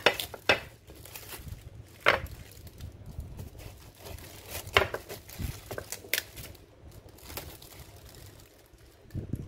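Clear plastic bag and cling film crinkling as they are pulled around watermelon wedges, a handful of short sharp crinkles a second or so apart.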